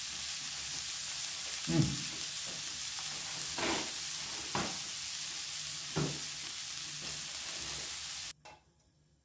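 Marinated beef strips sizzling on a Korean barbecue grill pan, a steady bright hiss. A few short low knocks come over it, and the sizzle cuts off abruptly near the end.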